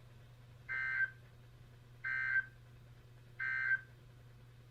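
Emergency Alert System SAME end-of-message code over NOAA Weather Radio: three short screeching digital data bursts about a second apart, marking the end of the alert broadcast. A low steady hum lies underneath.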